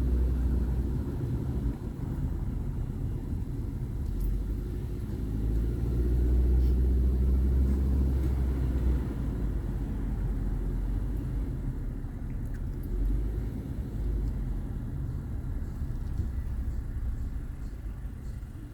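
Steady low rumble of a car being driven, engine and road noise heard from inside the cabin, swelling a little for a few seconds partway through.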